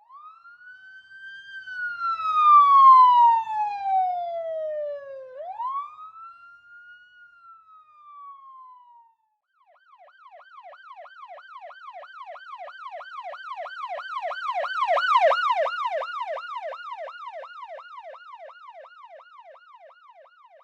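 Police siren: first a slow wail, gliding up and then down over several seconds, loudest about three seconds in and fading away. After a brief break about halfway through, a fast yelp warbling about three times a second swells up and then fades again.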